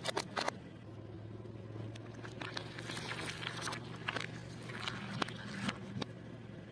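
Crunchy biting and chewing of crisp fried food, with irregular crackling crunches over a steady low hum.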